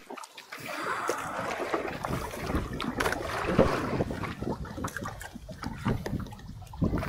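Seawater splashing and sloshing against the hull and bamboo outriggers of a small outrigger fishing boat, with scattered knocks. It is loudest for a few seconds after the start.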